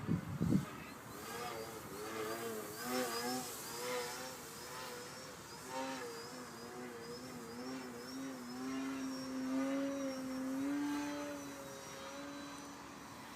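Brushless electric motor and propeller of a 3D aerobatic RC plane droning, its pitch wavering up and down with the throttle, then holding higher for a couple of seconds before fading near the end. A few low thumps come right at the start.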